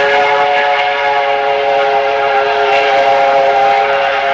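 Steam train whistle blowing one long, steady chord of several tones.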